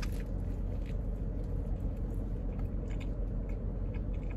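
A person biting into and chewing a toasted grilled mac and cheese sandwich, with faint scattered crunches from the crusty bread and crouton-like bits. Under it is the steady low rumble of the car cabin around him.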